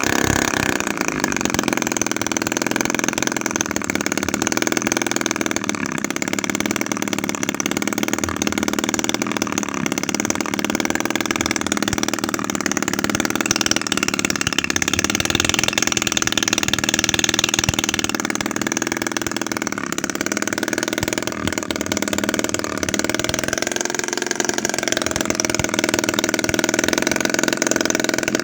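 Homemade 7cc two-stroke engine, built from a used refrigerator compressor, running steadily. Its speed falls off just at the start and briefly rises and falls again a little past the middle.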